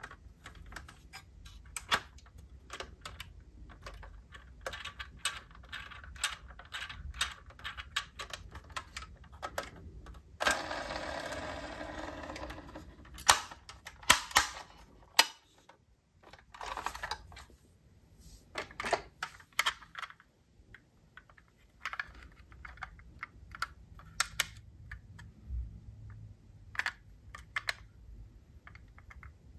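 Irregular light clicks and clacks of diecast metal model cars and their boxes being handled. About a third of the way in there is a steady rasp lasting about two seconds, followed by a few louder clacks.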